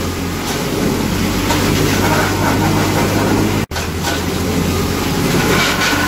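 Tractor-driven wood crusher (sawdust making machine) running steadily, with the tractor engine's low hum under the machine's noise. The sound cuts out for an instant about two-thirds through.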